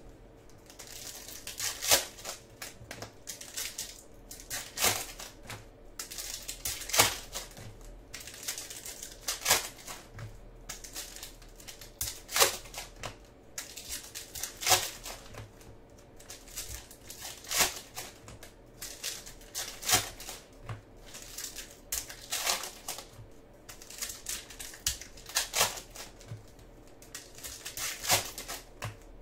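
Foil wrappers of baseball card packs crinkling and tearing open as the cards are handled, with sharp crackles every two to three seconds.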